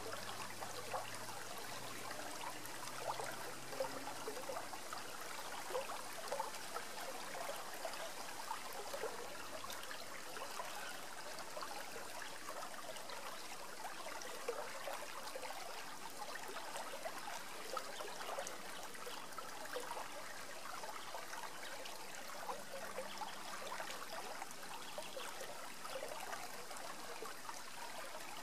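Shallow river rippling over rocks: a steady, even babbling of running water.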